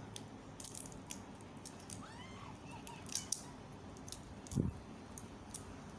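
Crisp shells of fried shrimp crackling and snapping in scattered clicks as they are peeled by hand, with one low knock about four and a half seconds in.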